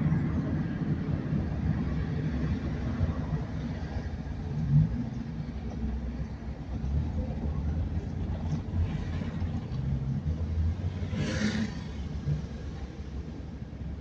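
Car engine and road rumble heard from inside the cabin while driving slowly in town traffic. A dull thump comes about five seconds in, and a short hiss near the end.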